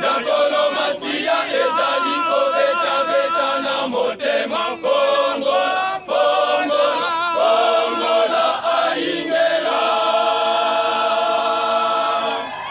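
Male choir of men and boys singing a cappella in parts, with vibrato on the held notes. The song closes on a long held chord near the end.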